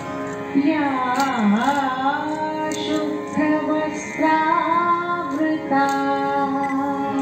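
Music: a woman singing a slow Indian devotional song in Carnatic style, with long held notes that bend and glide.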